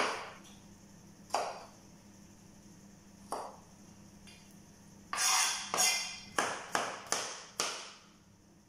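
Chef's knife cutting through tomato and knocking on a plastic cutting board: single knocks a second or two apart, then a quick run of about six chops in two and a half seconds near the end.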